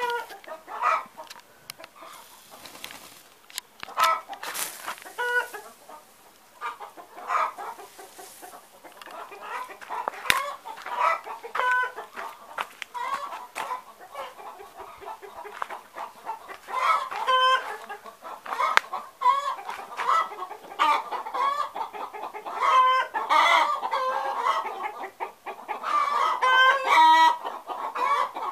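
Backyard poultry calling: a run of short pitched calls, scattered at first and coming thicker and overlapping through the second half.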